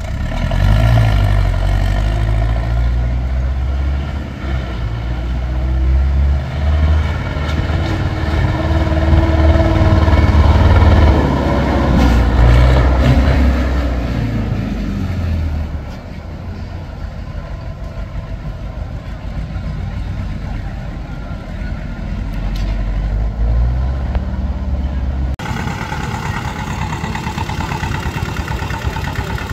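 Tractor engine running hard and revving, loudest and rising in pitch through the first half, then settling to a lower, quieter run. The sound changes abruptly near the end.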